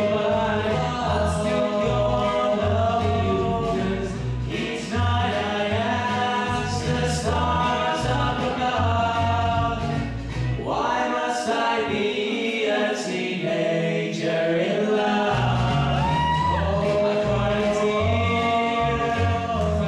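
Male vocal trio singing in close three-part harmony, several voices holding parallel sung lines, over backing music with a steady pulsing bass line.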